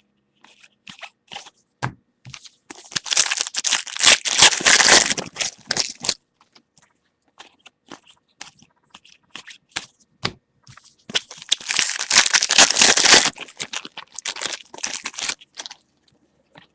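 Trading-card pack wrappers crinkling and tearing in two long bursts, with scattered light clicks and crackles of cards being handled in between.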